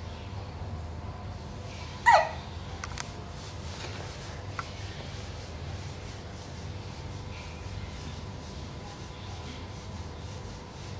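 A young child hiccups once, sharply, about two seconds in, the sound dropping quickly in pitch, followed by a couple of faint clicks. A faint steady hum runs underneath.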